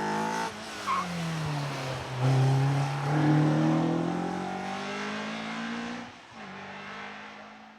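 A car's engine at hard acceleration, its note rising through the revs with sharp drops at gear changes about half a second in and about six seconds in, loudest a couple of seconds in and fading away near the end.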